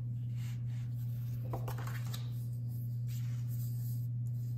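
A steady low hum, with faint rustling and light taps of a sheet of marker sketch paper being handled and laid flat on a wooden desk, most plainly about a second and a half in.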